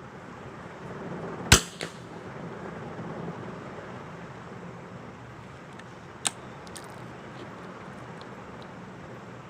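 A .22 rimfire smallbore target rifle fires a single sharp shot about a second and a half in, followed at once by a fainter click. A second, quieter crack comes a little after six seconds.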